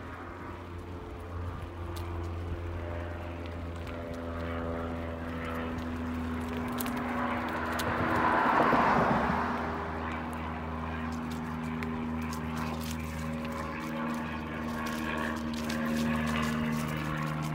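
Steady engine drone holding several pitches, with a swell of rushing noise that rises and falls about halfway through.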